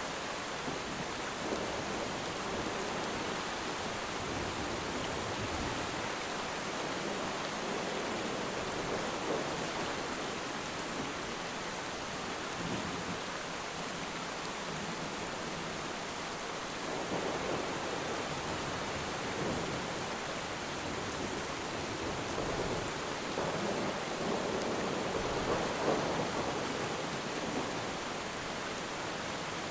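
Steady rain falling on water, an even hiss of drops, with a few swells of distant thunder in the second half.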